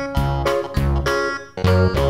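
Light instrumental background music: a tune of short notes over a bass line.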